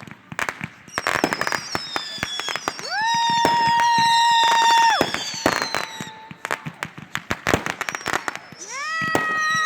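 Fireworks going off: a dense run of sharp pops and crackles with high falling whistles. A steady pitched whistle lasts about two seconds from around three seconds in, and another whistle rises near the end.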